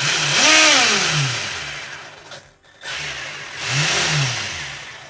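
Electric RC truggy's brushless motor and drivetrain, wheels off, given throttle twice to test the newly calibrated ESC. Each time the whine rises in pitch, then falls as it winds down. The second run starts about three seconds in.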